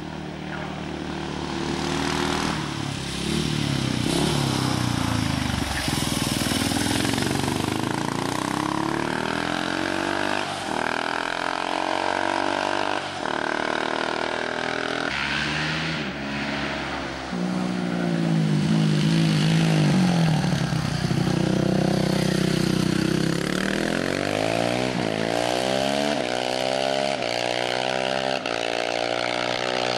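Racing motorcycle accelerating hard up a hill-climb course, getting louder over the first few seconds. Its engine note climbs in pitch and drops back sharply several times as it changes gear.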